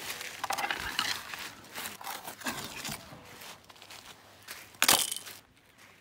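Beach gravel and pebbles crunching and scuffing as someone moves about on them, in irregular crunches with one sharp, loud crunch about five seconds in.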